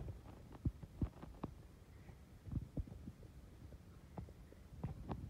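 Faint, scattered clicks and light knocks of small plastic toy pieces being handled, as a broken Bumblebee figure's parts are pushed and fitted back together, over a low room hum.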